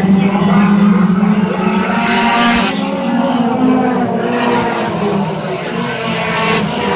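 Engines of a pack of short-track race cars running as they lap the oval, with one car passing close by about two seconds in, louder for a moment.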